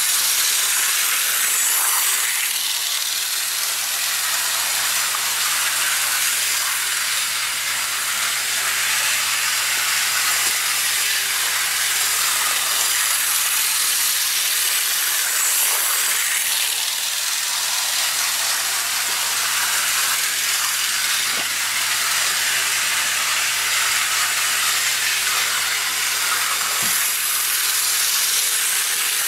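Cheap model steam locomotive's small electric motor and gearing running at full throttle: a steady, pretty loud hissing whir.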